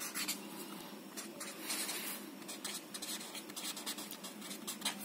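Felt-tip marker scratching and squeaking on paper in quick, uneven strokes as words are written out by hand.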